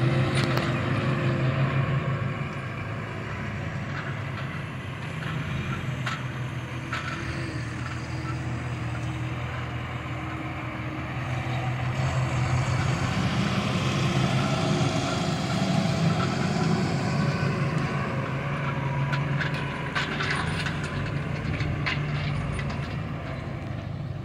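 Heavy diesel machinery engine working at sugarcane loading, running steadily and swelling louder midway, with a few sharp knocks.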